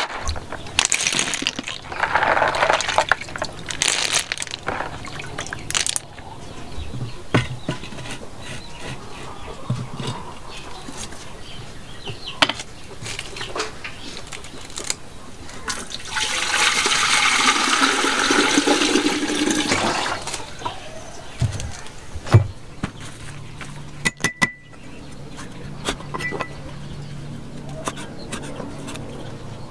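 Water poured into an earthenware clay pot, a steady rush for about four seconds in the middle. Scattered clatter and rustling come before it, and sharp knocks follow later, with a cleaver chopping on a wooden board near the end.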